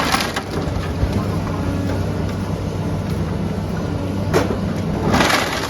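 Demolition of a wooden structure: bursts of wood cracking and crashing at the start and twice near the end, over the steady hum of a running engine.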